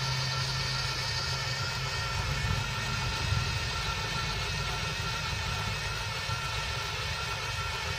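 Electric drill running steadily at low speed, its bit slowly boring through thick steel; a continuous motor whine made of several steady tones.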